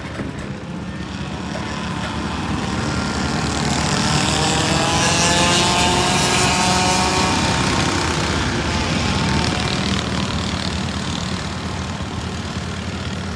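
Racing kart's Yamaha KT100 two-stroke engine at high revs passing by, growing louder to a peak in the middle and then fading, its note dropping in pitch as it goes past.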